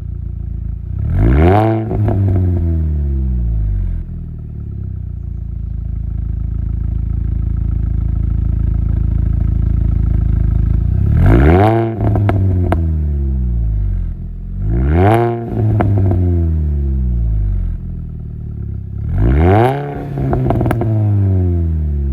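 Mini Cooper S R53's supercharged four-cylinder engine through a non-resonated Milltek catback exhaust with the factory cat. It idles steadily and is blipped four times: once about a second in, then three times in the second half. Each rev rises quickly and falls back with crackles and pops on the overrun.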